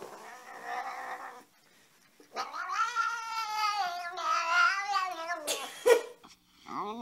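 A cat yowling: a long drawn-out call with a wavering pitch after a shorter one, then a sharp snap and a brief rising call near the end.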